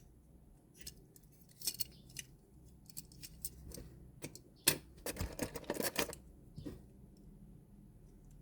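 Toys and packaging being handled: scattered light clicks and taps, a sharp click a little past halfway, then about a second of dense crinkling and clattering.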